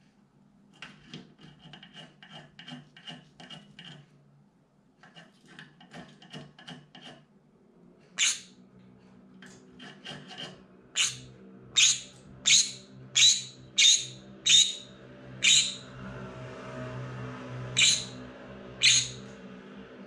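Green-cheeked conure giving a run of about ten short, shrill, piercing screams from about eight seconds in, spaced roughly a second apart and loudest in the middle. Before them, soft quick scratchy strokes, about three a second, in two short bouts.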